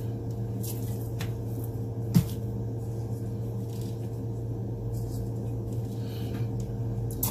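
Steady low hum, with a few faint ticks and one light knock about two seconds in, as salt is sprinkled from a jar and rubbed by hand onto a raw yellow croaker on a cutting board.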